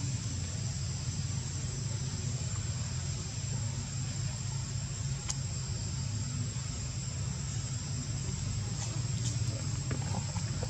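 Steady background noise: a low rumble under a constant high-pitched whine, with a few faint clicks; no calls from the monkeys.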